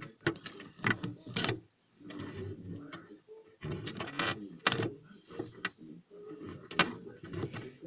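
Hard plastic toys being handled and knocked against a plastic surface: an irregular run of clicks, taps and scrapes.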